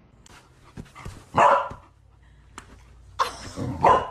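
A dog barking: one loud bark about a second and a half in, then two more near the end.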